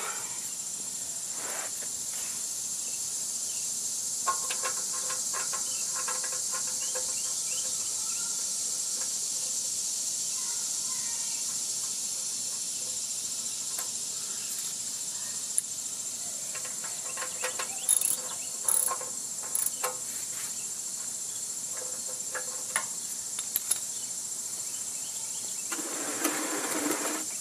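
Scattered light metallic clinks and taps as the oil drain plug is threaded back into the oil pan and snugged down by hand, over a steady high-pitched buzz.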